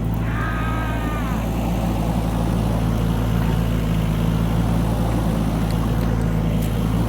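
Bobcat E26 mini excavator's diesel engine running steadily, with a brief high whine that bends in pitch in the first second or so.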